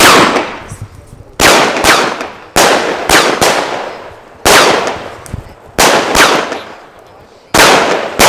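Lesli Showbrick Glitter 19 firework battery firing about ten shots at uneven intervals of half a second to a second, each a sharp bang that trails off over about a second.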